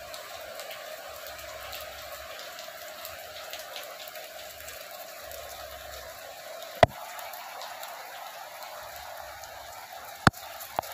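Steady rain falling on a wet paved rooftop, with two sharp clicks, one about halfway through and one near the end.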